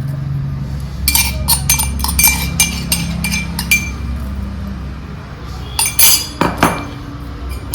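Metal mortar and pestle (hamdasta) clinking with a ringing tone: about a dozen quick sharp taps, four or five a second, in the first half, then a few louder knocks near the end, as the ground roasted black cardamom is knocked and scraped out.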